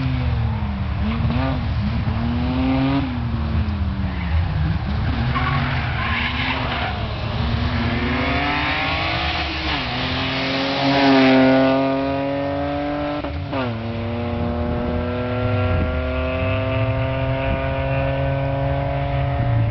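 BMW 320 rally car's engine working hard: revs rising and falling through gear changes under braking into a chicane, loudest as it passes close about halfway through, then accelerating away in a long rising pitch, with a shift about two-thirds of the way in. Tyre noise from the hard turn.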